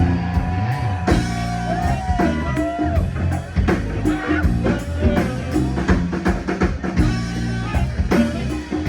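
Live band playing an instrumental passage: a drum kit keeping a steady beat with rimshots, bass and guitar, and a lead line that bends in pitch a second or two in.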